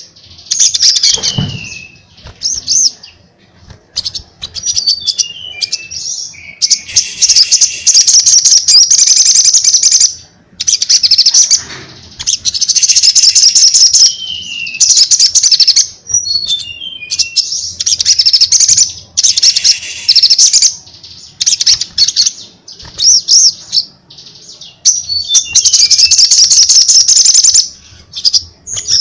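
Caged male sunbird (sogon) singing loudly: repeated bursts of high, fast chattering song with short falling trills, broken by brief pauses.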